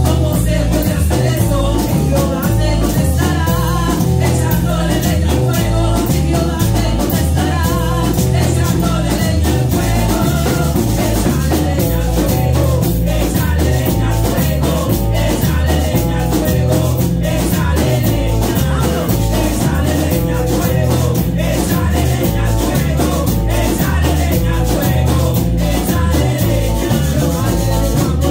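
Live worship music: a woman's voice singing through the microphone and loudspeakers, over electric guitar and drum kit with a steady, heavy beat.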